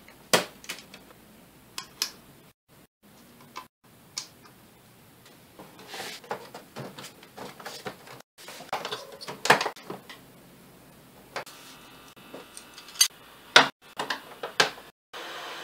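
Clicks and knocks of a flat-screen LG 32LN5400 TV's plastic back cover and metal chassis being handled and fitted together, then a screwdriver driving in the cover screws. The knocks come singly and irregularly, the sharpest ones near the end.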